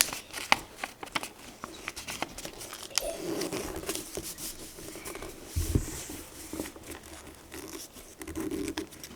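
A sheet of paper being folded and creased by hand: crinkling and rustling with many short, sharp crackles.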